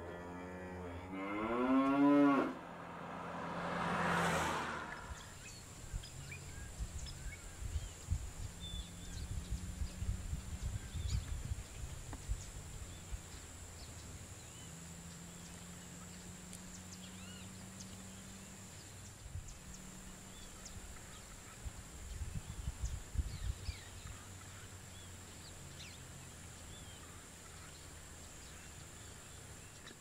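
Cattle mooing: one long call that bends upward in pitch a couple of seconds in, then a second, breathier call about four seconds in. After that a low rumbling background with faint, scattered bird chirps.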